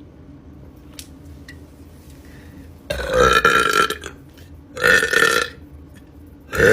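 A woman burping loudly three times: a long burp of about a second, a shorter one a second later, and a brief one at the very end.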